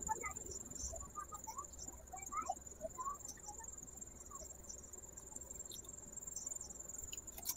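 Faint, steady, high-pitched trill of insects, with a few soft faint squelches of a lemon wedge squeezed by hand over chicken pieces.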